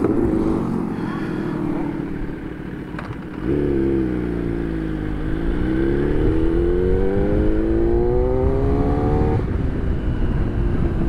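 Motorcycles passing on a road, then, from about three and a half seconds in, a sport motorcycle's engine heard from on board: its pitch dips, then climbs steadily as it accelerates, and falls abruptly near the end.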